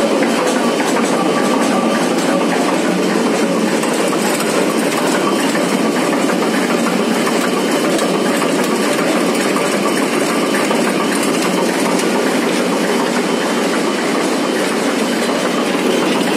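Cold pilger mill running at full speed, its crank-driven roll stand working back and forth on a steel tube: a loud, steady, dense mechanical clatter.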